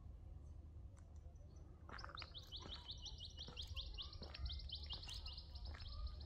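Birds chirping: a fast run of short, high, downward-sliding chirps that starts about two seconds in and keeps going, over a faint low rumble.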